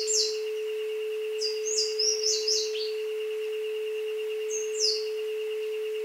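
Jungle bird calls, quick high whistles sweeping down in pitch: one at the start, a run of several from about a second and a half in, and one more near the end. Beneath them runs a steady 432 Hz tone with a fainter, fluttering higher tone.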